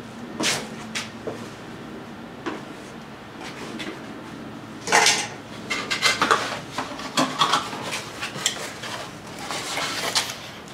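Cardboard boxes and packed parts being handled: a few scattered knocks, then a loud cardboard scrape about halfway through, followed by a busy run of clicks and rustles as a small cardboard box is lifted out and opened.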